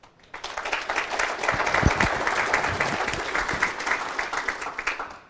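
Audience applauding. It starts about half a second in and dies away near the end.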